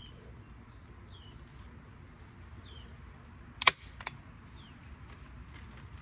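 Hand staple gun fired once a little past halfway: a sharp snap with a lighter click just after. Short falling chirps of a bird repeat faintly in the background.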